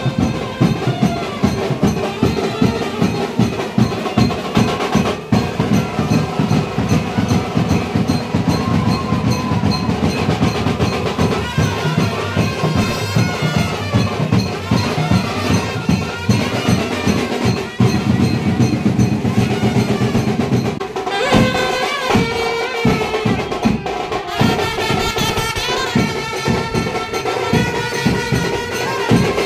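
Music with dense, fast drumming. A little over twenty seconds in, the drums drop back and a melody line comes to the front.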